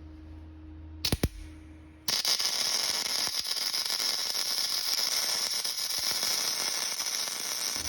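Welding arc crackling steadily on a steel nut set on aluminium, starting about two seconds in after a couple of sharp clicks.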